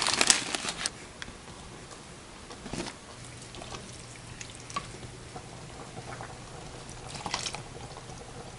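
Milk sauce cooking in a stainless steel pot: a faint steady sizzling hiss with a few light knocks of a wooden spoon against the pot, after a brief rustle at the start. A faint low hum comes in about three seconds in.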